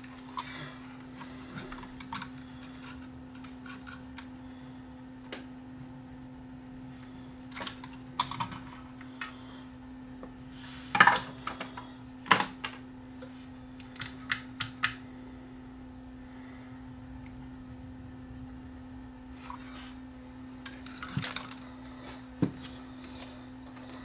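Metal tools and parts clinking and tapping in scattered sharp clicks and short clusters, the loudest a little after 11 and 12 seconds in, over a steady low hum.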